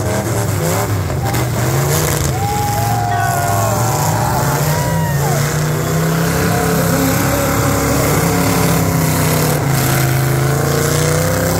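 Demolition derby cars' engines running hard, a loud steady drone with the pitch rising and falling as they rev.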